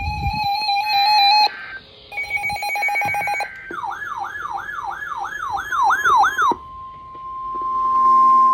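Electronic emergency alert tones. First come two short bursts of rapid pulsing beeps, then a siren tone sweeping quickly up and down about three times a second. About six and a half seconds in, a steady high single tone takes over: the weather-radio warning alarm tone that comes before a new warning.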